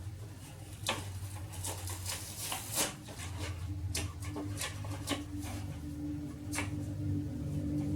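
Woodpecker pecking at a feeder: about half a dozen sharp, irregular taps over a steady low hum.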